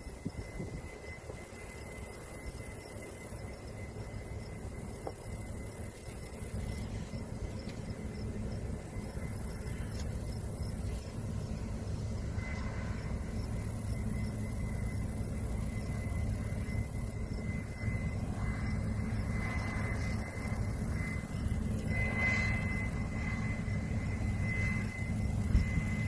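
Case IH combine harvester running steadily while picking up barley: a low machinery drone with a thin, constant high whine, growing a little louder through the stretch.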